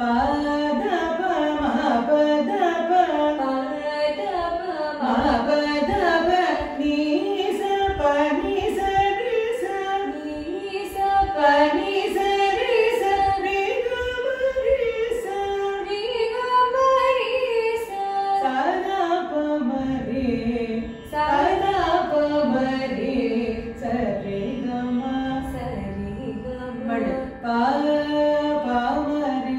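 A woman singing a Carnatic kriti in raga Janaranjani, with long phrases of gliding, ornamented notes.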